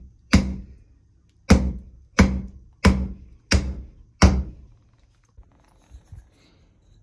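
Wooden mallet blows driving a square wooden blank down through a cone-shaped trunnel cutter, rounding it into a trunnel (shipbuilding wooden nail): six heavy thunks about two-thirds of a second apart, each dying away briefly. A few faint light knocks follow as the finished peg is pulled out.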